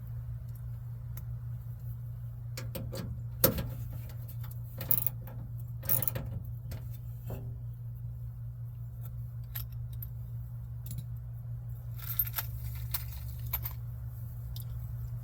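Small metal parts and hand tools clinking and rattling in short bursts, about three and a half, five and six seconds in and again around twelve to thirteen seconds, while a car door handle and lock are being fitted. A steady low hum lies underneath.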